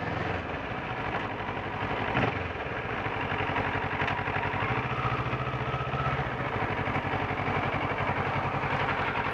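A 2012 Kawasaki ER6N's parallel-twin engine turning with a rapid, even pulse, heard close up, with a sharp click about two seconds in.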